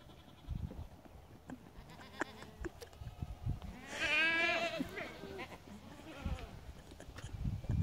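A lamb bleats once, a long quavering bleat about four seconds in. Dull thuds of a dog's paws scrambling on dry dirt come and go around it.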